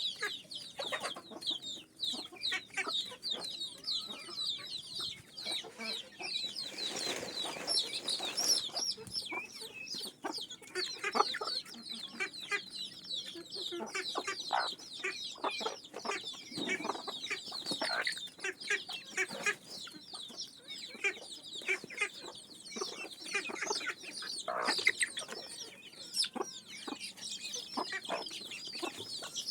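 A flock of desi chickens clucking, over a steady stream of many short, high-pitched cheeping calls. A brief rustling burst comes about seven seconds in.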